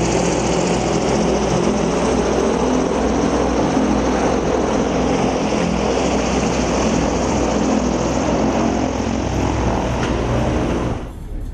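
Zeppelin NT airship's propeller engines running steadily close by, a loud, even drone with a low hum. It drops away sharply about eleven seconds in.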